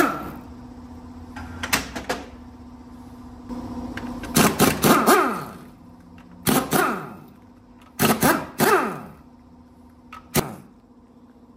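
A series of sharp knocks in about six clusters, several followed by a short ringing that falls in pitch, over a steady low hum.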